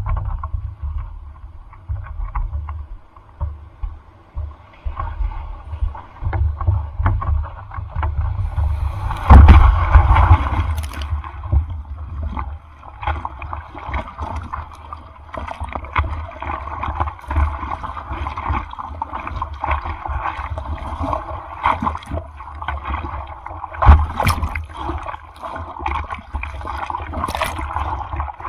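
Seawater splashing and sloshing close to the microphone in typhoon surf, with wind buffeting the mic. There are two louder rushes of water, one about nine seconds in and one about twenty-four seconds in.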